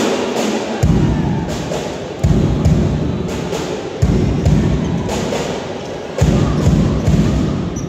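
Four heavy low thuds, about one and a half to two seconds apart, each booming on in the gym's reverberation. Scattered sharp clicks and crowd noise run under them.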